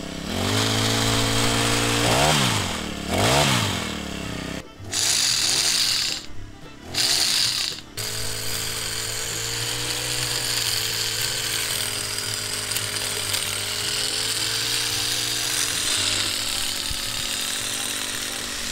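Small petrol engine of a pole hedge trimmer, just started. It is revved up and down twice on the trigger, then given a few short revs, and then runs steadily at speed while the blades cut through a hedge.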